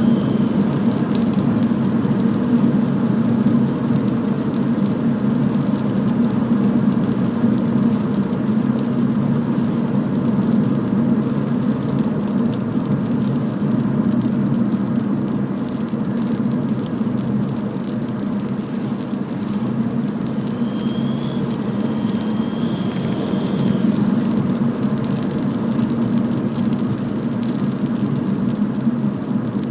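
BMW 320d E90 diesel engine and road noise under way, a steady low drone, with a faint high-pitched whistle coming in about twenty seconds in and lasting a few seconds. The whistle comes only under load and acceleration, which the owner takes for the turbo whistling.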